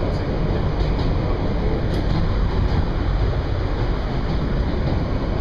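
New York City subway train running over the rails, heard from inside the car: a steady low noise of wheels on track.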